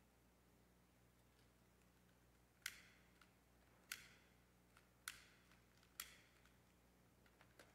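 Four faint, sharp clicking strikes about a second apart, someone repeatedly trying to light a candle, with a few softer ticks near the end.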